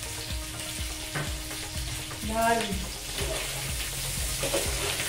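Potatoes for aloo dum frying in oil in a pan, a steady sizzle.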